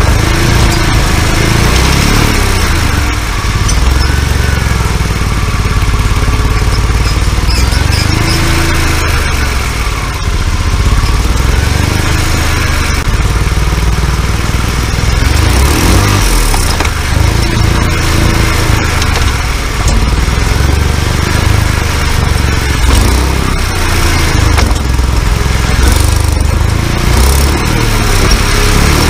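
BMW E46 330xi's front driveshaft and U-joint spinning with the engine running in gear on jack stands, heard from under the car: a steady loud drivetrain rumble. Over it a squeal rises and falls in pitch every few seconds, the squeak of the dry, worn U-joint that the owner is out to cure.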